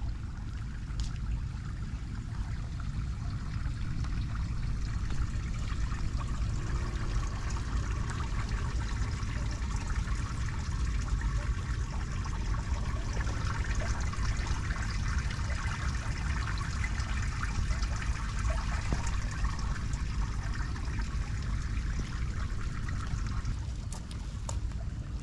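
Water trickling and dribbling at a roadside storm drain choked with wet leaves, over a steady low rumble. The trickling drops away near the end.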